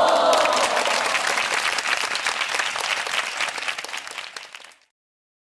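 Canned sound effect of a crowd cheering and applauding. The cheering voices are strongest at first, then dense clapping carries on and thins out, and it cuts off shortly before the end.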